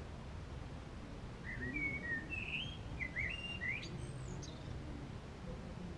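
A songbird singing a short twittering phrase of quick chirps and whistles, starting about one and a half seconds in and lasting about three seconds, over a steady low rumble.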